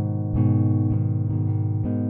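Background music: plucked string notes over a deep, steady bass, with a new note struck every half second or so.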